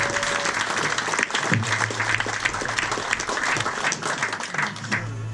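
A small crowd clapping and applauding, dying away near the end.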